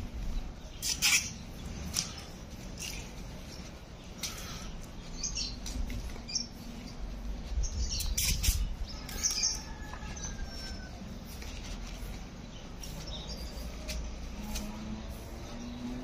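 Open-air ambience: a low, uneven rumble of wind on the microphone, with scattered short bird chirps and a few sharp clicks, mostly in the first half.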